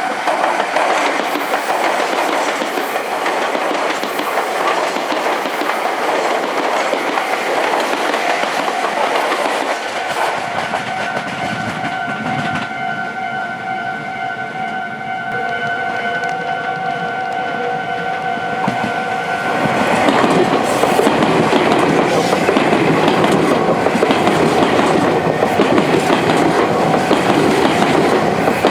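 Meitetsu electric trains running through a junction and level crossing, wheels clacking over the rail joints, while the crossing's warning bell rings on without a break. The train noise grows louder and fuller about two-thirds of the way in as a train passes close by.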